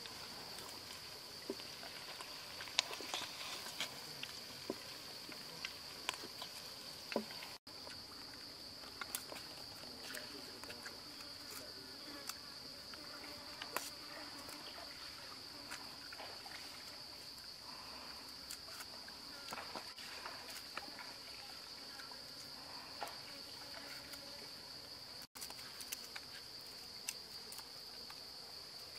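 Insects droning steadily at one high pitch, with scattered light clicks and taps of hands handling food.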